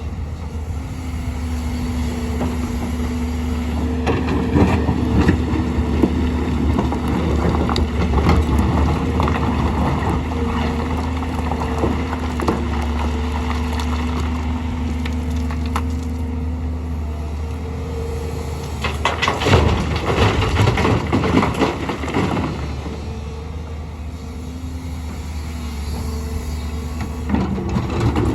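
Excavator's diesel engine running steadily with a low hum and a steady hydraulic whine, while loose stone rattles and scrapes as it is dug and dumped into a truck bed. The stone noise comes in two loud spells, the second starting about two-thirds of the way in.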